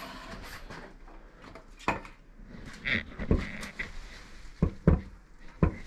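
Rubber mallet knocking a Ytong aerated-concrete block down into its mortar bed to set it level, about five dull knocks, the loudest near the end.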